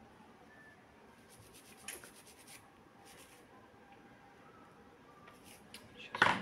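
Small phone parts being scrubbed clean: two runs of quick, scratchy strokes, then a few light clicks and a sharp knock near the end.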